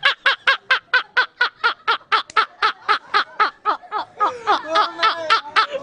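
Two men laughing hard: a rapid run of high-pitched, evenly spaced "ha" bursts, about five a second, with a second, lower laughing voice joining in about four seconds in.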